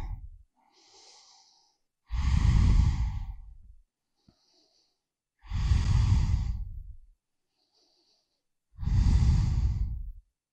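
A person's slow, steady breathing close to the microphone: three long, audible breaths about three and a half seconds apart, with fainter breaths between them.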